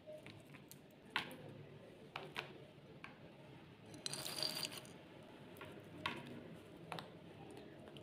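Walnut pieces being scattered by hand onto shahi tukray on a china plate: a few faint clicks and a short crackling rustle about four seconds in.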